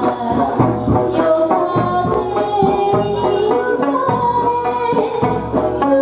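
Live Okinawan folk music: a sanshin plays a melody over a steady percussive beat.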